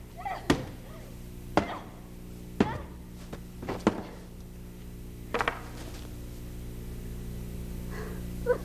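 A wooden quarterstaff swung hard in a rage, whacking again and again: about six sharp blows roughly a second apart, then a brief strained cry near the end.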